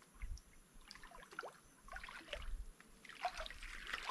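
Shallow lagoon water splashing and trickling as a shrimp sieve is swept through it, growing louder toward the end, with a couple of low thumps near the start.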